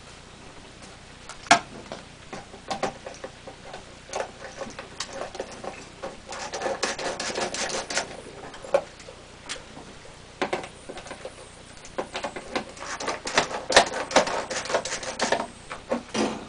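Clicks and small taps of a Phillips screwdriver backing screws out of the mounting tabs under a Masterbuilt electric smoker's control panel. Scattered single clicks, with two spells of rapid ticking: one a little before halfway through and a longer one later on.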